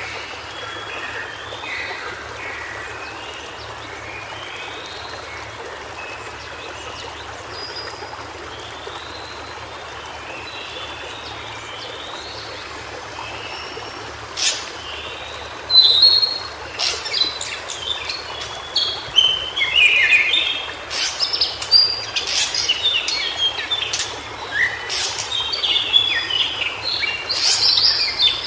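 White-browed shortwing singing in short, jumbled, warbling phrases over a steady background hiss. The song grows much louder and busier about halfway through, mixed with sharp clicking notes.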